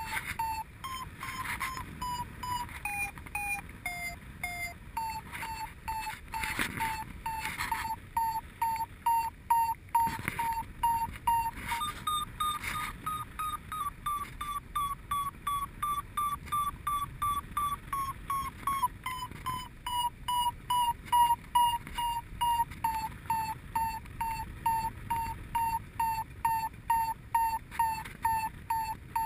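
Paragliding variometer beeping its climb tone: a fast steady train of short beeps, about two to three a second, signalling that the glider is rising in lift. The beeps jump higher in pitch about twelve seconds in, then slide slowly back down as the climb eases, with a few short rushes of wind on the microphone.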